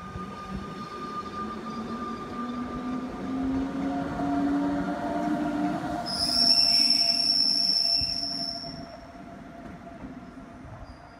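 Rhaetian Railway passenger train with an electric locomotive pulling out and accelerating, a low motor hum rising steadily in pitch. About six seconds in, as the locomotive passes, a loud high-pitched wheel squeal lasts some three seconds, then the sound fades as the train moves off.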